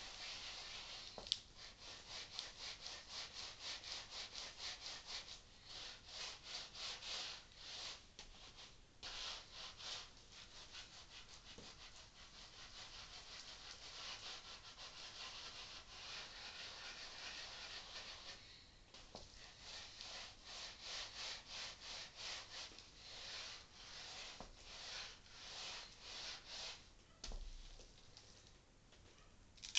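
Wooden boccia ball softener board pushed back and forth by a strapped-on forearm, rubbing a boccia ball against a towel: a faint rhythmic rubbing swish of about two to three strokes a second, smoother for a few seconds in the middle.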